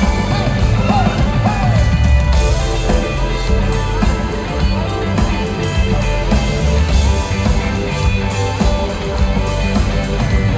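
Live rock band playing loud, dense music with a heavy bass, in a stretch with no sung words.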